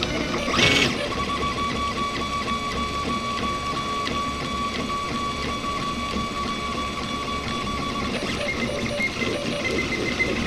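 RepRap Prusa Mendel 3D printer running a print, its stepper motors whining at steady pitches as the carriage moves. There is a brief louder burst about half a second in, and the whine shifts to a higher pitch near the end.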